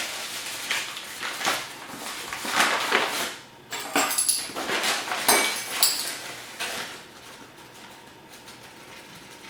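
Kitchen handling noises as flour is measured into a bowl: rustling with a series of sharp clinks of a spoon against the bowl, busiest about four to six seconds in, then dying down.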